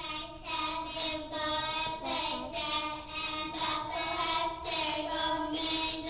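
A child's voice singing a slow melody in long held notes, with short breaks between phrases.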